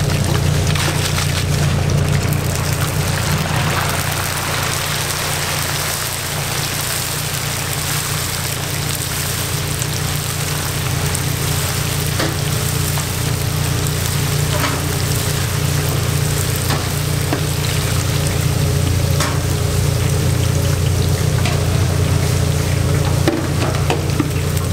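Dried bugak slices deep-frying in a stainless-steel tray of hot oil: a steady sizzling hiss as the slices puff up, with a few light clicks as a wire skimmer stirs them. A steady low hum runs underneath.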